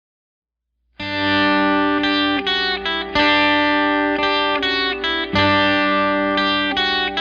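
Instrumental intro of a pop-rock song: guitar playing sustained chords that change every second or two, starting suddenly about a second in after silence.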